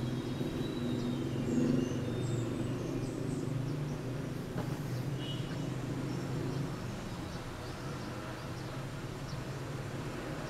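Steady low background hum, with a few short, faint high chirps in the first few seconds.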